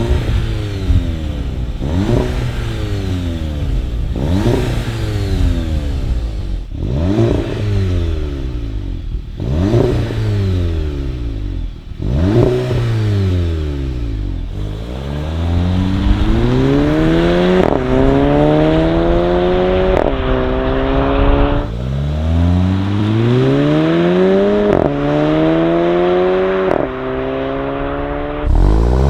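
Exhaust of a VW Mk7 GTI's 2.0-litre turbocharged four-cylinder engine. First about six quick revs, each rising sharply and falling back. Then the car accelerates through the gears, its pitch climbing and dropping suddenly at each upshift.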